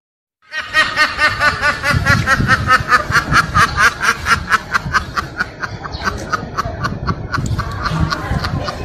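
A meme laughing sound effect: a long run of quick, evenly repeated snickering laughs that starts about half a second in.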